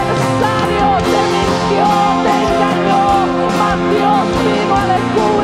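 Live worship band playing, with voices singing a wavering melody over strummed acoustic guitar and held chords.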